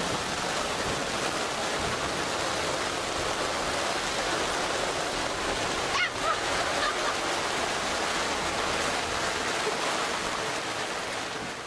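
Steady rushing noise heard inside a moving safari vehicle's cabin, with a brief sharper sound about six seconds in.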